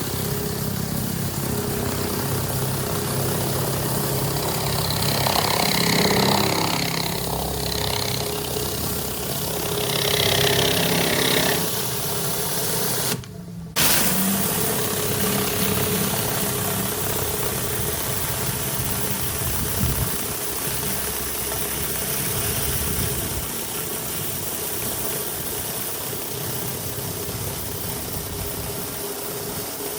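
Pressure washer engine running steadily, with the hiss of the high-pressure water spray coming and going over it.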